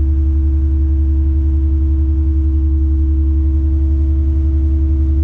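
Tadano 180G-5 all-terrain crane's engine running steadily, heard inside the operator's cab: a constant low drone with a steady hum above it.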